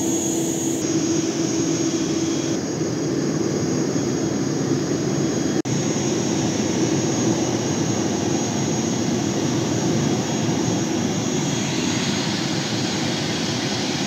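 Turboprop airliner engines running close by on an airport apron: a loud, steady whine and rush of engine noise, with a brief dropout a little past halfway.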